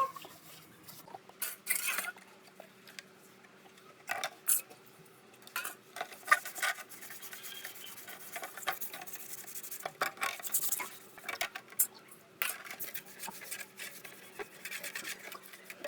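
Irregular clinks, taps and scraping of metal parts and hand tools being handled and worked on.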